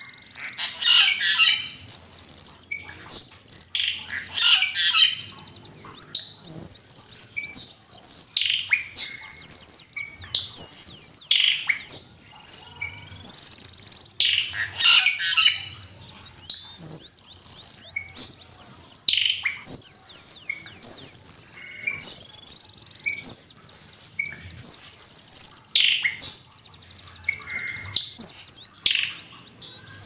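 Cucak keling bird singing: a fast, unbroken run of loud, high-pitched call phrases about one a second, mixed with lower chattering chirps.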